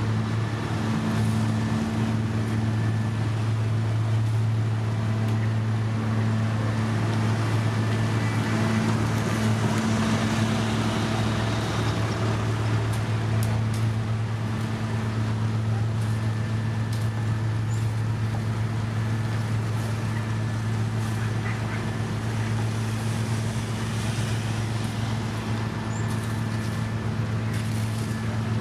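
Diesel engine of heavy road construction machinery running steadily at a constant speed, a low hum with machine noise over it. A few light clicks and knocks come through about halfway.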